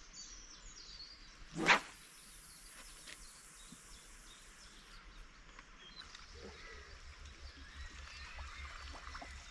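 Small birds chirping faintly in the background by a lake, with one loud, sharp swish lasting a fraction of a second about two seconds in.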